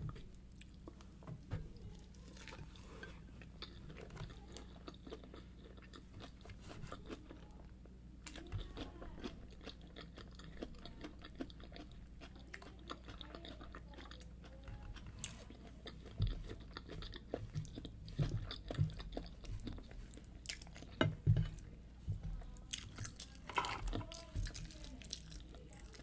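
Close-miked chewing of fried yam with egg sauce: many small crunches and mouth clicks, becoming louder and denser in the second half.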